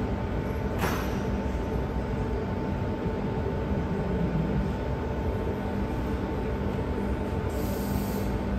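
Steady hum of workshop machinery with a faint steady tone, and a single metallic knock about a second in.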